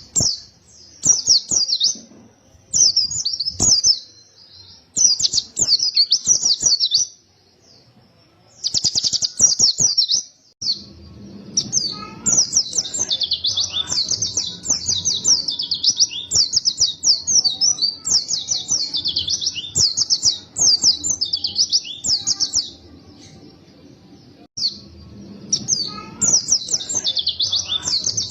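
White-eye (pleci) singing in long, rapid, high twittering phrases, pausing twice briefly.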